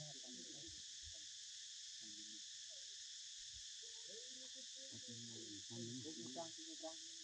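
Steady, high-pitched insect chorus droning without a break, with faint distant voices now and then, more of them in the second half.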